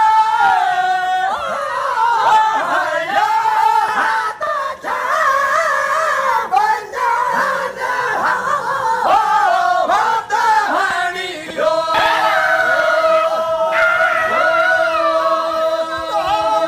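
Male voices singing a Sindhi molood, the unaccompanied devotional chant praising the Prophet. About twelve seconds in, voices settle onto a steady held drone note while the lead voice moves over it.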